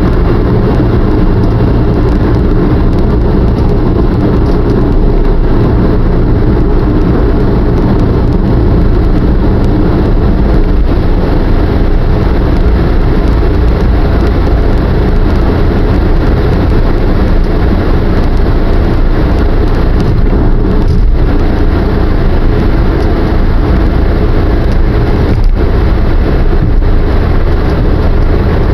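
Steady road and engine noise heard inside a car's cabin at expressway speed: a heavy, even low rumble of tyres and engine. Two faint knocks come in the last third.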